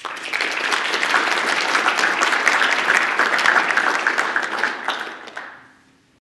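Audience applauding at the end of a talk: many hands clapping together, starting at once and fading out near the end.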